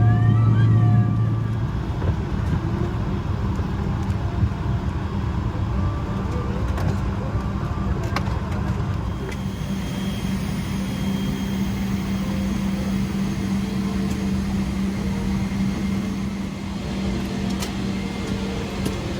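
Cabin noise of a Boeing 777-300ER taxiing after landing: a steady low rumble with a low hum. A deeper hum drops away about a second and a half in, and a few faint clicks sound through it.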